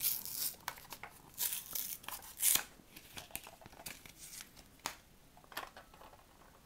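Paper insert tearing and a card backing being pulled out of a clear plastic blister pack of headlight bulbs, with plastic crinkling and rustling. The handling is busiest and loudest in the first half, then thins to scattered rustles and a couple of sharp plastic clicks.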